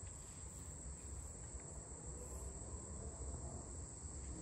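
Insects, most likely crickets, trilling in a steady high-pitched chorus, with a low rumble underneath.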